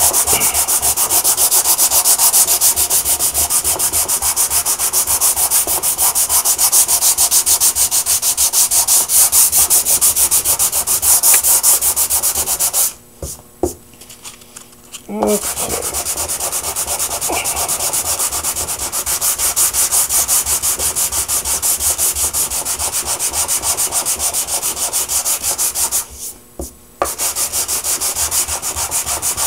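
Sandpaper on a small hand sanding block being rubbed back and forth over a dried veneer repair, sanding it lightly and flat. It makes a steady, rhythmic scratching that stops briefly twice.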